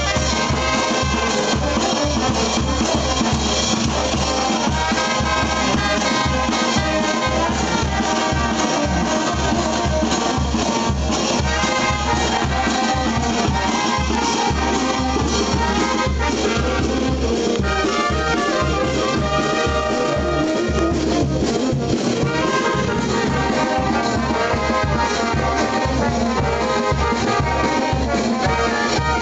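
Street brass band playing: trumpets and trombones carry the tune over a drum and hand cymbals that keep a steady beat.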